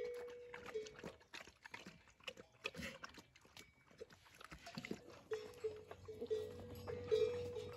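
Dogs eating from a hollowed-log trough: many quick wet chewing and lapping clicks. A steady, drawn-out animal call comes and goes in the background, near the start and again through the second half.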